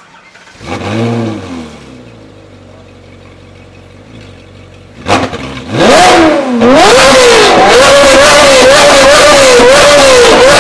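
Ferrari 458 Italia's V8 with an Fi valvetronic exhaust, valve open, starting up with a flare of revs about half a second in and settling to idle. About five seconds in it is blipped, then revved and held high, very loud, the pitch wavering up and down for the rest.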